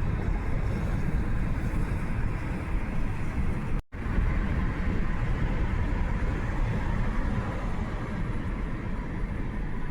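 A car driving, a steady road and engine rumble. The sound breaks off for an instant just before four seconds in, then carries on unchanged.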